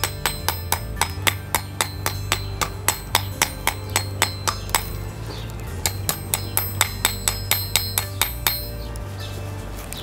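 Ball-peen hammer striking red-hot steel on a scrap-steel block anvil, about three to four ringing blows a second, as a split tine is forged out. The blows pause briefly near the middle and stop near the end.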